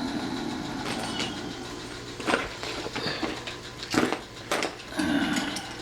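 Lock hardware and packaging being handled: a few sharp knocks and clicks, the loudest about two seconds in and again at four seconds, with rustling between.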